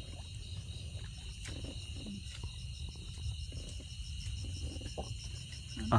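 Night insect chorus of crickets: steady high-pitched trilling with a faster, evenly pulsing chirp above it, over a low rumble of handling noise and a few faint knocks.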